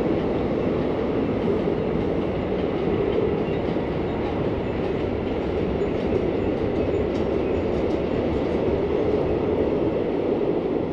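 A train rolling past, a steady rumble of wheels on rails that holds an even level throughout.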